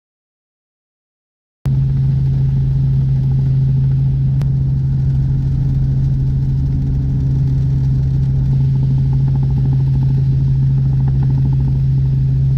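Helicopter running overhead: a loud, steady drone. It starts after about a second and a half of dead silence.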